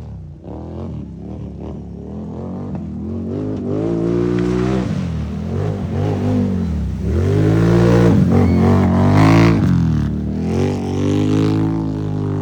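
ATV engine revving, its pitch climbing and dropping several times as the throttle is opened and eased off, loudest about two-thirds of the way through.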